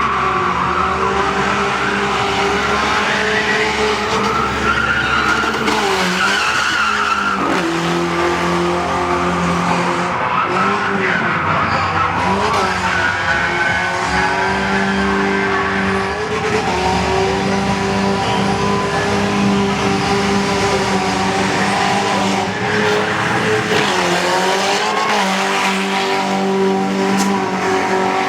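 A car doing a burnout: its engine is held at steady high revs, dipping briefly and climbing back a few times, over the continuous squeal of spinning tyres.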